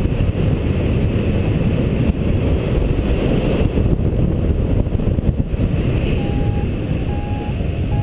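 Steady wind rush over the microphone of a paraglider in flight. From about six seconds in, a variometer beeps in short steady tones about once a second, the sign that the glider is climbing in lift.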